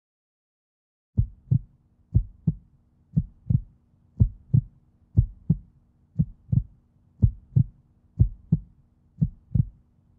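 Heartbeat sound effect: a steady double thump, lub-dub, about once a second, over a faint low hum. It starts about a second in.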